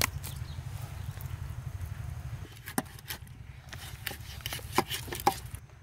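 Cut pieces of wallago catfish are put down on a metal platter, giving several short sharp knocks and wet slaps over a steady low rumble.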